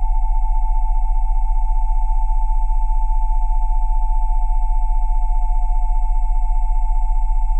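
A steady chord of synthesized sine tones at 727, 787 and 880 Hz over a very low 20 Hz tone, held without change, with a fast, even flutter in loudness.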